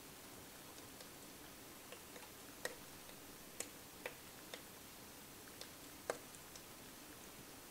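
Faint, scattered ticks and pops from magnesium ribbon fizzing in hydrochloric acid inside a styrofoam-cup calorimeter, a few irregular clicks about a second apart as the reaction nears its end.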